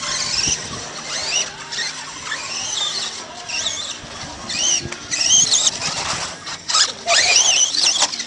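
Radio-controlled off-road cars' electric motors whining, several at once, the pitch repeatedly rising and falling as they accelerate and brake around the track. There is a brief clatter of knocks near the end.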